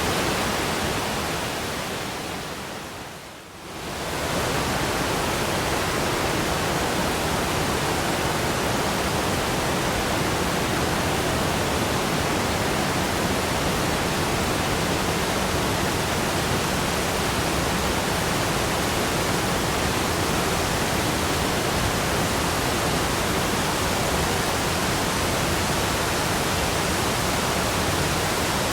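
Waterfall, water falling and rushing as a steady, even noise. About three seconds in it fades down briefly and then swells back to full level.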